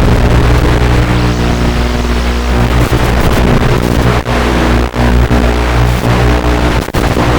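Loud music with sustained low tones that shift to a new chord a few seconds in, over a dense hiss, with a few brief dropouts.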